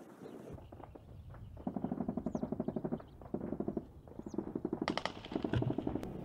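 Distant automatic gunfire: about four sustained bursts of rapid shots, roughly a dozen a second, the loudest and sharpest just before five seconds in. Two short bird chirps sound between the bursts.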